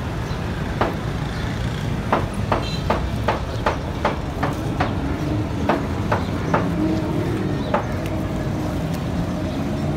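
Butcher's knife cutting down between beef ribs, its tip knocking against the wooden chopping block in a string of sharp clicks, about two or three a second, over a steady low background rumble.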